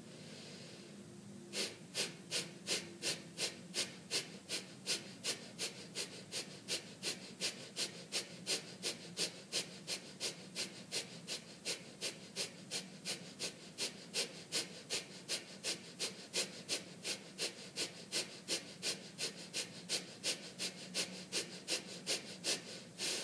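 Kapalabhati breathing: after a short quiet inhale, a steady series of sharp, forceful exhalations through the nose, about three a second and some sixty in all, stopping shortly before the end.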